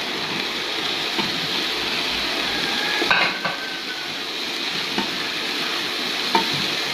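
Sliced onions frying in Dalda and coconut oil in a large aluminium pot, a steady sizzle as chopped green chillies are dropped in. A few light metallic clinks, the loudest about three seconds in.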